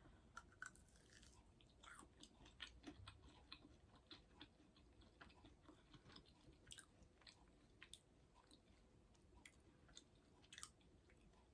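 Faint chewing of a plant-based meatball: scattered soft mouth clicks and smacks.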